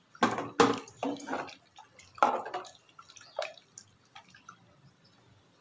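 Thin tomato soup splashing and dripping in a cooking pot, a series of short splashes over the first four seconds.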